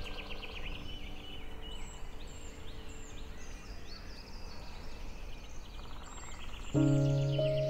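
Birds chirping in quick repeated high notes, many falling in pitch, over a soft outdoor hiss. About seven seconds in, a sustained low chord of ambient music comes in suddenly and louder.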